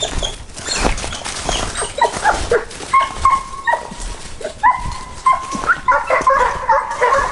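Scent hounds baying: a series of drawn-out yelping cries begins about two seconds in and thickens into overlapping voices near the end. This is the hounds giving tongue as they work a line. Footsteps squelch and crunch on slushy, icy ground before the baying starts.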